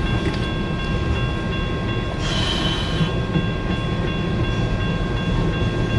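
Freight cars of a long mixed freight train rolling past with a steady rumble, heard from inside a parked car with its engine off. A brief high-pitched noise comes about two seconds in.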